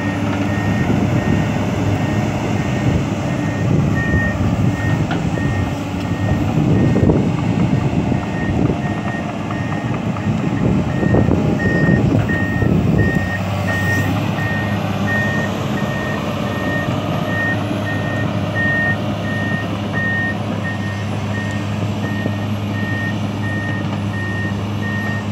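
Reversing alarm beeping steadily, about two beeps a second, over heavy diesel machinery running. The engine noise grows louder for several seconds near the middle, then settles back to a steady run.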